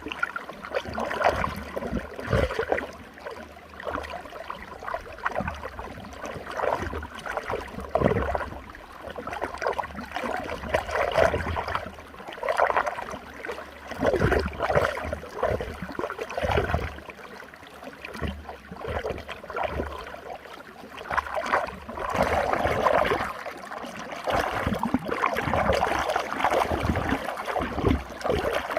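Running water swirling in a whirlpool, a continuous rushing and churning that swells and falls in uneven surges.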